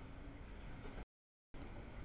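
Faint, steady background noise heard in short stretches, each broken off abruptly by dead silence about every second, as from recording clips spliced together.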